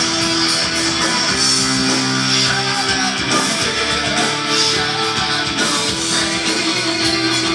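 Heavy metal music: electric guitars playing sustained, changing chords and notes at a steady loud level.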